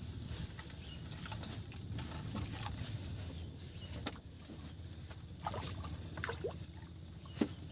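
Water lapping and sloshing against the bamboo floats of a fishing platform, with a few short plops from about four seconds on, over a low steady rumble.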